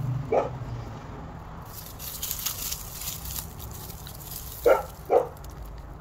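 A dog barks once just after the start and twice in quick succession near the end. In between, dry mulch and soil crackle and rustle as hands dig through a potato bed.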